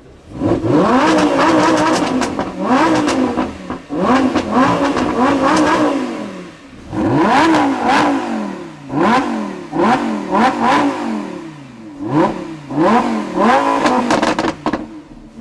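Lamborghini Huracan's V10 engine revved hard in a series of about ten blips, each pitch rising sharply then falling back. The exhaust crackles and pops as the revs drop.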